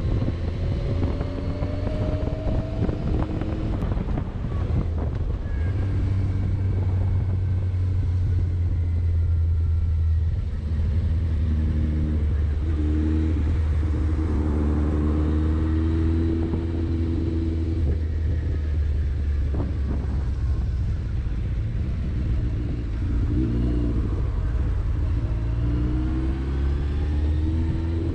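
1999 Yamaha FZS600 Fazer's inline-four engine running under way, its pitch rising and falling several times with throttle and gear changes.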